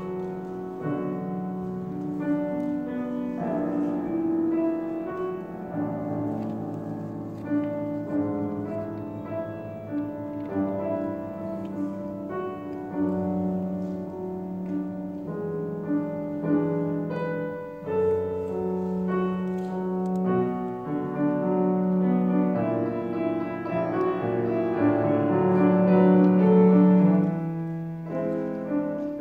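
A small live jazz combo playing a slow piece, the grand piano to the fore with electric guitar and light drums. The music grows louder near the end.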